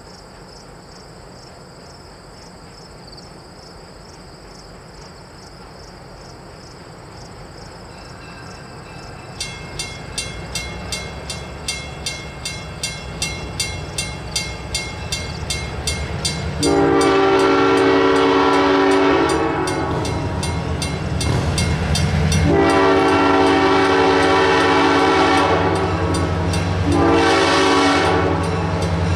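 A steady high buzz, then a railroad crossing bell starts ringing about nine seconds in, at about two strokes a second. Past halfway the approaching EMD GP7 diesel locomotive sounds its horn for the grade crossing, long, long, short, long, over its own rumble growing louder.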